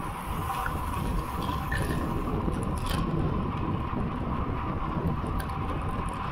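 Wind rushing over the microphone of a camera mounted on a moving road bicycle, mixed with the steady hum of tyres rolling on asphalt.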